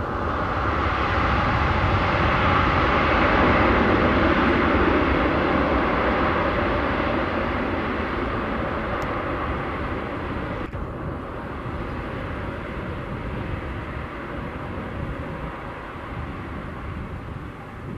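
Boeing 737 MAX 8's CFM LEAP-1B turbofan engines at high thrust as the airliner rolls away down the runway. The roar peaks a few seconds in, then slowly fades as it draws away.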